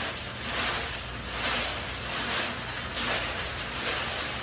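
Paper entry slips tumbling inside a hand-cranked brass wire-mesh raffle drum as it turns, a rhythmic swishing rustle a little faster than once a second.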